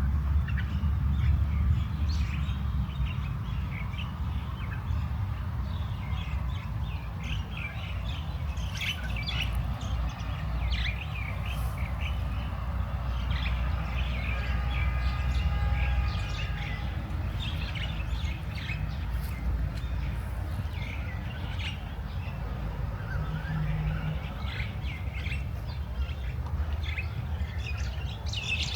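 Small songbirds chirping and twittering over and over, with a steady low rumble underneath.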